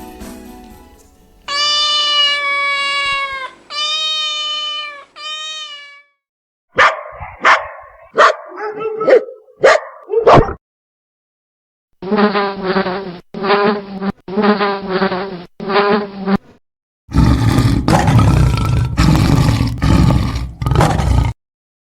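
A run of animal sound effects one after another: a cat meowing three times, a dog barking several times, a bee buzzing in four short bursts, then a lion roaring.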